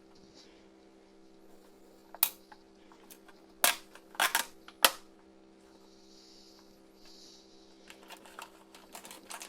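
Plastic toy blister pack being pried open: a few sharp snaps and clicks, the loudest about four to five seconds in, then light crinkling of the packaging near the end.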